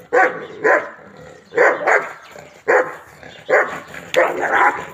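Large dog barking fiercely on a leash, about seven loud barks, some in quick pairs, as it lunges at a stranger during attack training.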